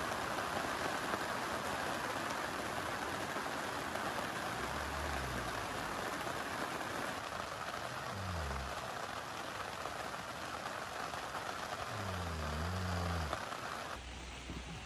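Heavy rain falling steadily on a tent, heard from inside, with a few brief low sounds through it. Near the end the rain sound turns quieter and duller.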